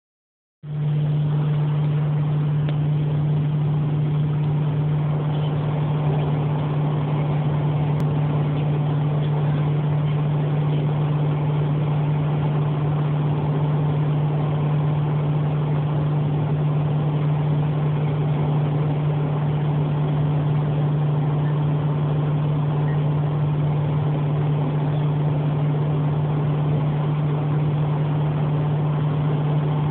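Car cabin noise while driving steadily: a constant low drone from the engine and road, with an even rush of tyre and wind noise over it.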